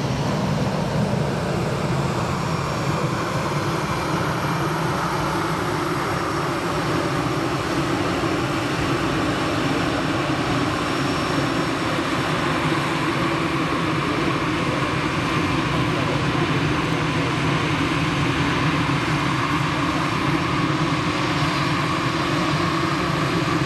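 Jet engines of a Boeing 737-300 (CFM56 turbofans) running through its landing and rollout: a steady rush of engine noise with a faint high whine above it.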